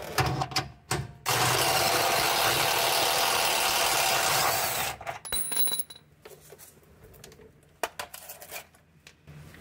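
Compact cordless impact wrench running steadily for about three and a half seconds, spinning out one of the 14 mm bolts of the engine pitch stop mount. A few light metallic clinks and knocks follow as the bolt and tools are handled.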